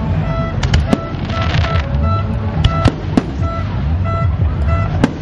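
Aerial fireworks going off: repeated sharp bangs and pops, with a burst of crackling about a second and a half in, over a continuous low rumble.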